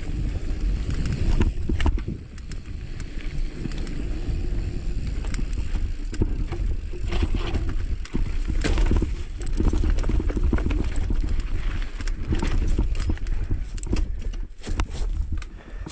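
Mountain bike riding along a dirt singletrack: a steady low rumble of tyres on dirt and wind on the microphone, with the bike rattling in many quick clicks and knocks over bumps and rocks.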